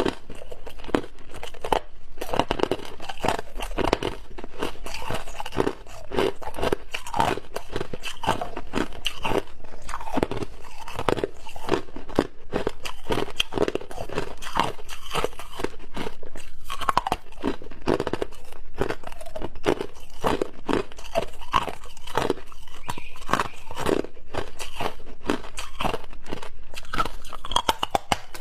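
Close-up crunching of clear ice chunks being bitten and chewed, a continuous run of sharp cracking crunches.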